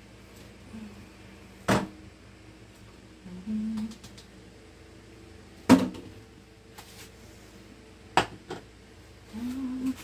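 Three sharp knocks of hard kitchen items being handled and set down at a sink, a few seconds apart, the second the loudest.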